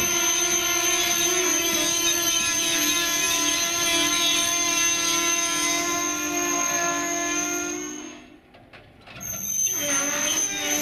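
Railway locomotive at a station running steadily, with a constant high whine over its running noise. The sound falls away abruptly about eight seconds in and comes back about a second and a half later.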